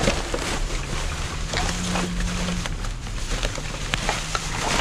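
Rummaging through trash in a dumpster: plastic bags and loose items rustling, crinkling and clicking, over a low steady hum that comes and goes.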